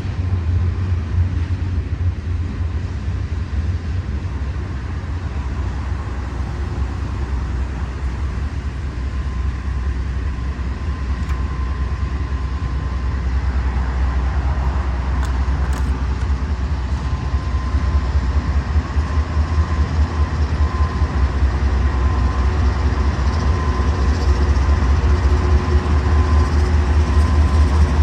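Norfolk Southern freight train rolling past with a steady low rumble. A thin steady squeal joins about ten seconds in, and the sound grows louder toward the end.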